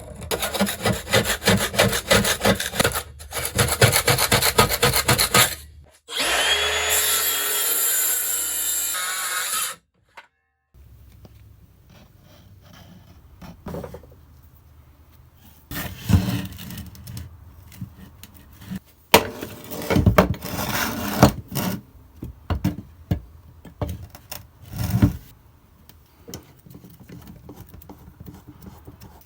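Hand saw cutting through wood in quick, even back-and-forth strokes, then a few seconds of steady louder noise that stops abruptly. After a quiet pause, scattered sharp knocks of wood on wood.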